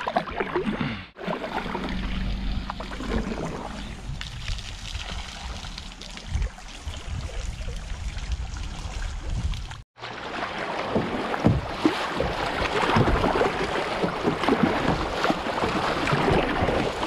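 Kayak on a river, heard from a camera mounted on the boat: quiet water sounds and a low wind rumble. After a cut about ten seconds in, loud rushing and splashing water as the kayak runs a shallow rapid.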